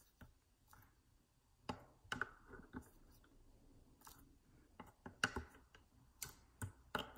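Faint, irregular clicks and taps of groove-joint pliers working a small part straight, about a dozen over several seconds, the loudest a little past the middle.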